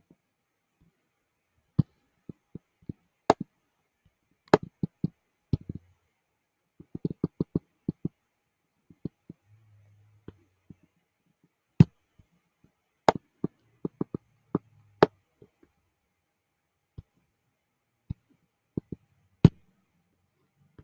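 Irregular sharp clicks or taps, some single and some in quick runs of several, with near-silence between them.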